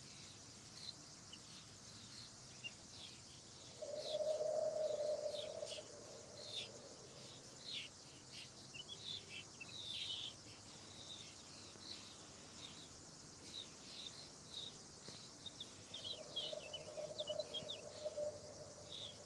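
Faint chirping of small birds, many short high calls throughout. Twice, about four seconds in and again near the end, a low hum rises above them for a couple of seconds.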